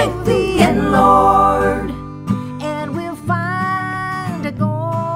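Gospel-style song: a woman singing long held notes that bend and slide in pitch, over acoustic guitar.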